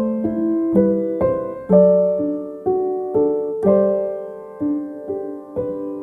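Soft, slow piano music: single notes and chords struck about twice a second, each ringing and fading before the next.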